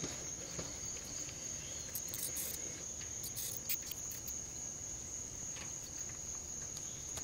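Insects calling in a steady, unbroken high-pitched chorus, with a few faint ticks a couple of seconds in.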